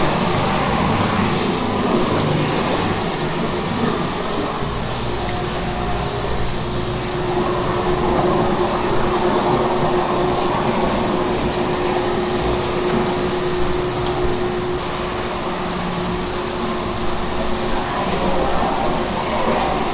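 Large industrial rotating-bowl mixer running steadily as it churns cod fish paste: a continuous mechanical rumble, with a steady hum standing out through the middle.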